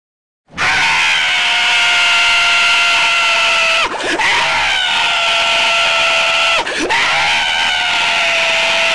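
A cartoon character's long, loud, high-pitched scream held on one pitch, breaking twice with a short downward swoop before picking up again.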